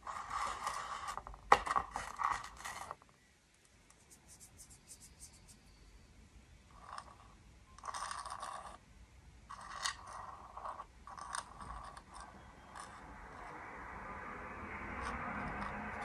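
Handling noise: short bursts of scraping and rustling, each about a second long, with a sharp click about a second and a half in. A longer, steadier rustle builds near the end.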